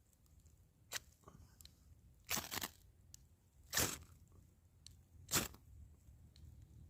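A fire steel (ferro rod) struck repeatedly onto fatwood shavings to throw sparks: about five short, sharp rasping scrapes, roughly one every second and a half.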